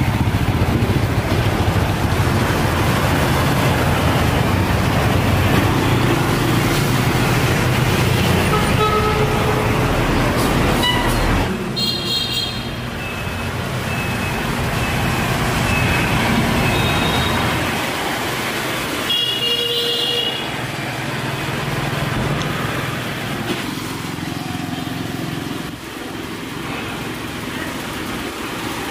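Road traffic: vehicle engines running with a steady rumble that eases about eleven seconds in, and short horn toots about twelve and twenty seconds in.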